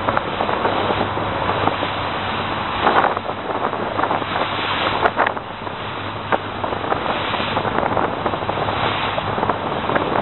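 Fishing boat's engine running with a steady low hum, under wind noise on the microphone and rushing water, with a few short knocks or splashes.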